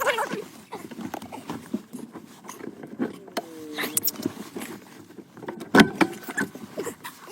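Clicks, rattles and scrapes of metal radio-removal keys and plastic trim as a car radio is worked at in the dash, with one loud knock about six seconds in.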